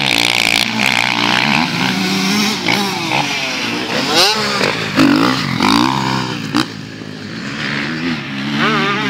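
Motocross dirt bike engine revving hard, its pitch rising and falling again and again as the rider works the throttle through a jump.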